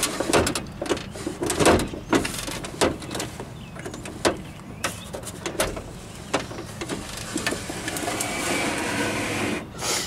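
Clicks and clunks from an old steel Jeep CJ door as its hardware is worked, then near the end a few seconds of steady sliding and rubbing as the manually cranked window glass is wound down its channel.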